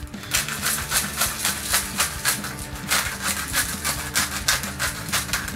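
Hand-twisted pepper mill grinding pepper onto butternut pumpkin halves: quick, evenly repeated rasping strokes, about three a second, over background music.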